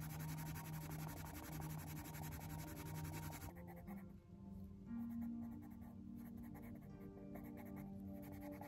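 Coloured pencil scratching on the paper of a colouring-book page as an area is filled in, densest for the first three and a half seconds and sparser after. Soft background music with long held notes plays under it.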